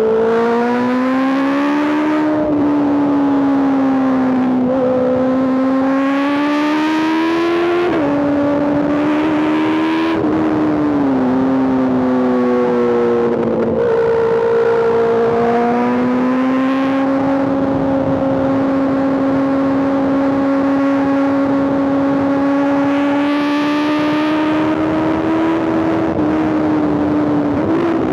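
Honda CBR650R inline-four engine through an Arrow aftermarket exhaust, riding: the engine note climbs and drops several times with throttle and gear changes, then holds fairly steady at cruise for about ten seconds before dipping again near the end.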